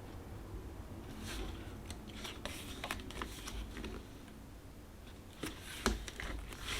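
Paper rustling as the pages of a tarot guidebook are turned and handled, with a couple of soft knocks near the end.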